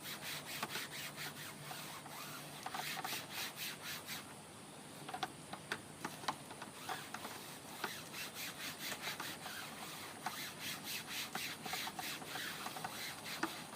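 Soft brush scrubbing a wet, soapy window screen and its frame in quick back-and-forth strokes, about four a second. The strokes pause for a few seconds midway, broken by a few light taps, then start again.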